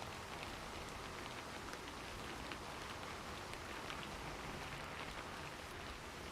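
Steady rain falling, an even hiss with faint individual drops ticking here and there.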